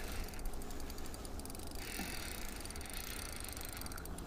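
Spinning reel on an ice-fishing rod clicking rapidly in two stretches, about half a second in and again near the end, while a big lake trout pulls against the bent rod.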